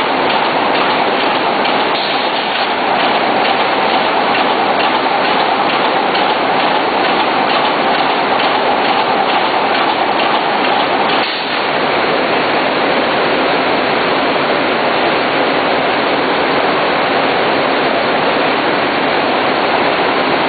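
Single-spot welding machine firing weld after weld on the steel wire spokes of a fan guard, about two crackling welds a second over a steady hiss. The welding rhythm stops about eleven seconds in, leaving the steady hiss.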